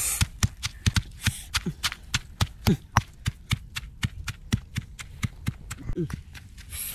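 Pestle pounding chilies and other sauce ingredients in a stone mortar: quick, regular knocks, about five a second, with a few duller thuds among them.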